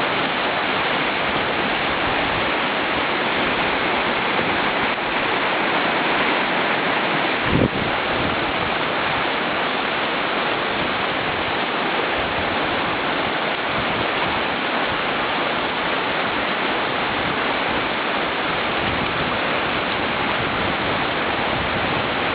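River rapids rushing loudly and steadily, a constant wash of whitewater. A single brief thump about seven and a half seconds in.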